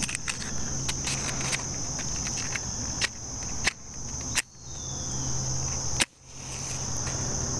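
Steady high-pitched drone of insects, with scattered small clicks and a few sharper knocks from hands handling a small container and a box of matches.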